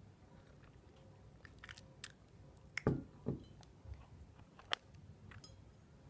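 Close-up mouth sounds of sipping hot tea from a ceramic mug: a few wet clicks, then two gulping swallows about three seconds in, and another sharp mouth click near the end.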